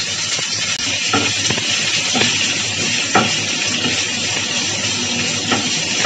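Chopped onions sizzling steadily in hot sesame oil in a nonstick pan. A wooden spatula scrapes and knocks against the pan about five times as they are stirred.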